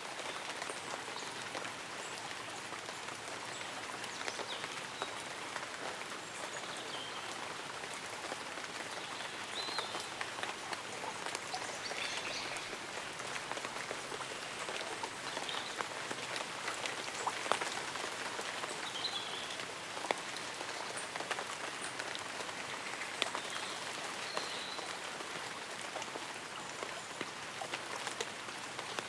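Light rain falling on leaves and an umbrella: a steady hiss with many small scattered drop ticks. Faint short high chirps come through now and then.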